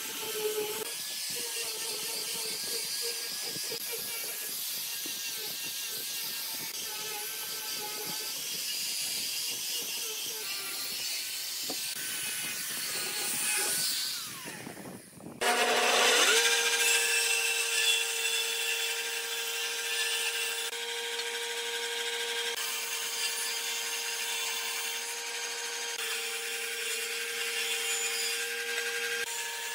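Handheld angle grinder with a sanding disc sanding a curved wooden chair part, its pitch wavering as it is worked along the edge. About halfway through it stops, and a Hitachi jointer-planer starts up with a quick rising whine, then runs at a steady pitch as a board is passed over its cutters.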